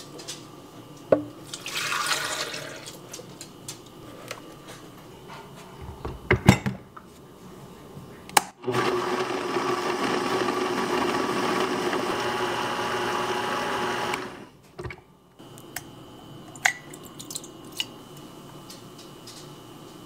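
Milk poured into a blender jar, a few knocks, then a Vitamix blender running steadily for about five seconds, blending taro paste with milk, before it stops abruptly. A few light clicks follow.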